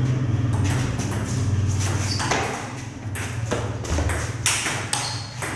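Table tennis rally: the celluloid ball clicking sharply off bats and table in quick, irregular succession, over a low background hum.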